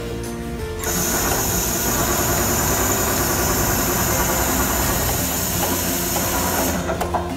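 Richpeace automatic sewing machine running, a steady mechanical noise with a loud high hiss that starts about a second in and cuts off sharply shortly before the end.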